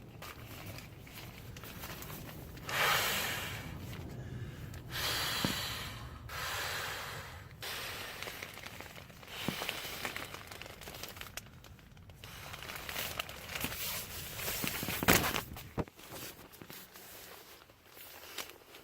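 A person blowing long breaths by mouth into the valve of an inflatable sleeping pad, one rush of air after another with short pauses between. Near the end there is a single sharp click.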